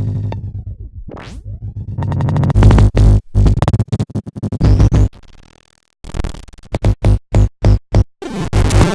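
A rapid string of short electronic sound-effect and music snippets. It opens with a downward pitch glide and a quick rising sweep, then runs into abruptly chopped, stuttering bits of electronic music with a brief gap about halfway.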